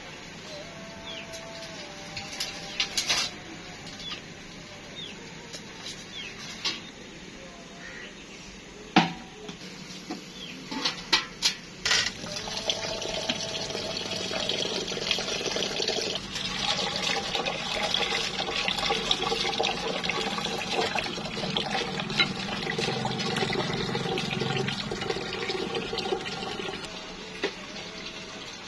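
A few sharp knocks and clatters. Then, about twelve seconds in, a tap runs water into a clay bowl of rice in a steel sink: a steady splashing as the rice is rinsed, stopping shortly before the end.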